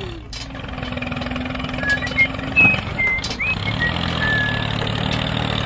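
Tractor engine running steadily, its hum dropping back early on and rising again about four seconds in, with a few short high chirps in the middle.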